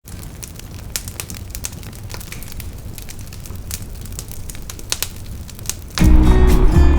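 Campfire crackling with irregular sharp pops over a low rumble. Loud music cuts in about six seconds in.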